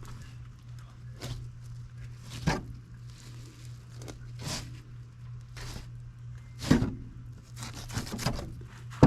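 A Dexter fillet knife slicing through a fish, a series of short tearing and scraping strokes as the fillet is cut free. A steady low hum runs underneath.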